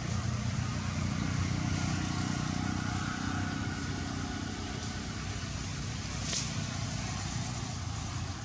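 A motor vehicle's engine running steadily as a low hum, with a brief high hiss about six seconds in.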